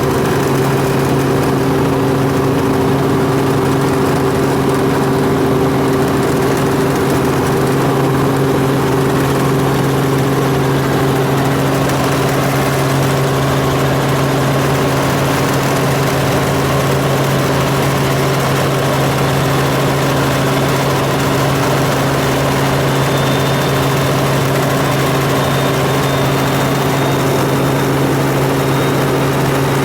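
Helicopter in flight: a loud, steady drone of rotor and engine with a few even humming tones, unchanging throughout.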